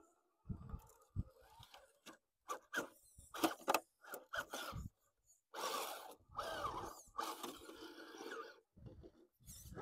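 Radio-controlled rock crawler's electric motor and drivetrain whining in stop-start bursts as it climbs a rock pile, with its tyres scraping and grinding over the rocks.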